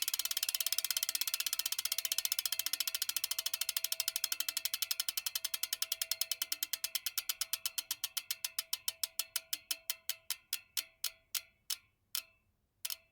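Spinning-wheel ticking sound effect: rapid ratchet-like clicks, about ten a second at first, slowing steadily until the last few come a second apart and the clicking stops near the end, as a wheel coasting to a halt.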